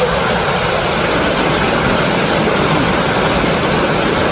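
Loud, steady rush of falling water from a waterfall, an even roar with no pitch or rhythm.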